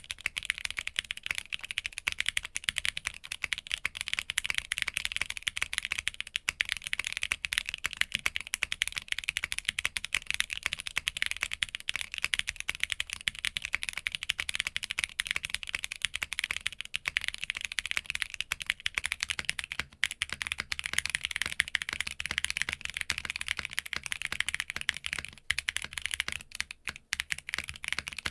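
Fast, continuous typing on an Arc60 mechanical keyboard with a POM plate and EMT v2 switches: a dense, steady stream of key clacks. Near the end there is a short lull, then typing resumes on the same board fitted with a polypropylene plate.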